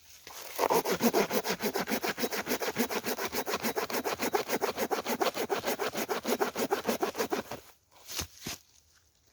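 Saw cutting through wood with quick, even back-and-forth rasping strokes, starting about half a second in and stopping about three quarters of the way through, followed by a single knock.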